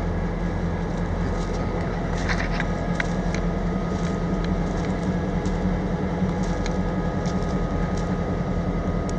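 Idling diesel locomotive engine giving a steady, even hum with several held tones, and a few faint clicks.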